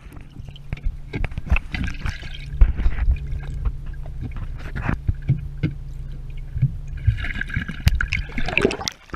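Underwater sound picked up by a camera held below the lake surface beside a swimmer: muffled sloshing, bubbling and irregular knocks from the swimmer's movements, over a steady low hum that stops shortly before the end.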